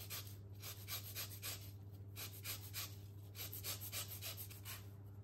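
Lemon peel being zested on a Microplane rasp grater: quick, even scraping strokes, about three or four a second.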